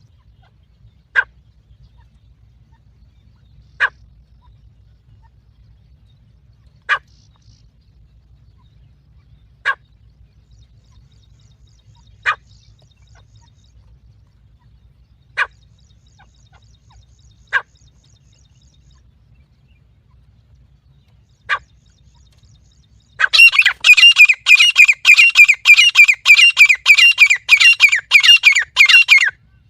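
Teetar (francolin) calls used as a lure to bring the birds in: a short sharp call every two to four seconds, eight times, then about six seconds of loud, rapid repeated calling, roughly four notes a second.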